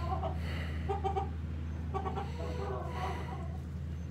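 Hens clucking in a few short runs of low, clipped notes.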